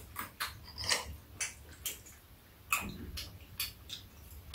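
Metal spoons and chopsticks clicking against ceramic bowls and a metal tray while eating, in short, sharp, irregular clinks.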